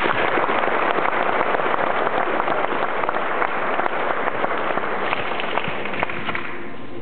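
Audience applauding: a dense spread of clapping that dies away near the end.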